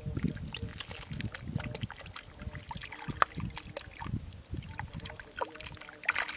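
Hands squelching, scooping and splashing through wet mud in shallow water, with irregular trickles and small sharp clicks, the sharpest about three seconds in.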